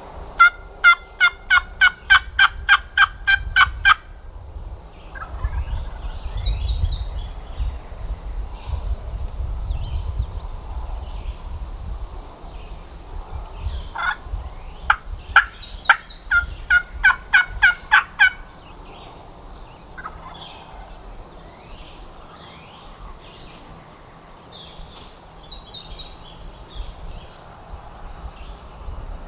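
Wild turkeys calling: two runs of about a dozen evenly spaced turkey yelps, one at the start and one about halfway through. Each run is followed a couple of seconds later by a fainter gobble from a longbeard.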